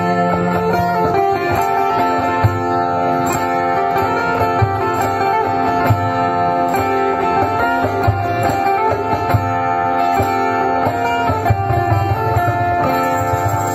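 Live acoustic band playing: several acoustic guitars strumming and picking chords, with a cajón thumping out a steady beat underneath.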